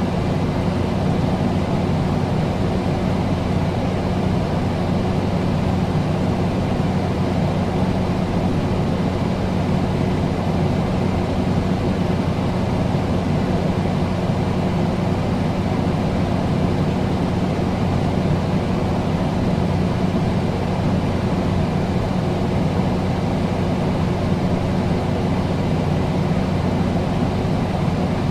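Air conditioner running steadily: a constant rushing fan noise over a low electrical hum, with no change in speed or pitch.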